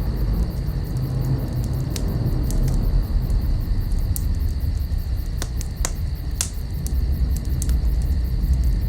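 Fire burning: a steady low rumble with scattered sharp crackles and pops.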